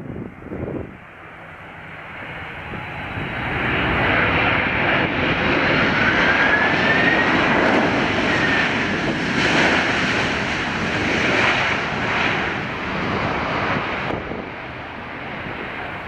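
Jet engines of a Boeing 767 on its landing rollout just after touchdown. The engine noise swells over about four seconds, stays loud, then eases off near the end, with a thin whistling tone that rises and falls in the middle. Wind buffets the microphone in the first second.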